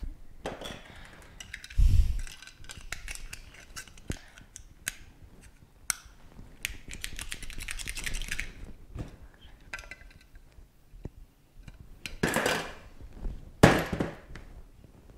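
Small hard plastic mouse parts being handled and set down on a countertop: scattered clicks and taps, a thump about two seconds in, a quick run of clicks around the middle, and two louder scraping sounds near the end.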